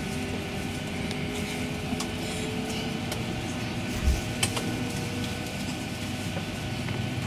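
Steady hum of a Boeing 737 cabin on the ground, a mechanical drone with several steady tones from the aircraft's running systems. A single low thump about four seconds in, with a sharp click just after.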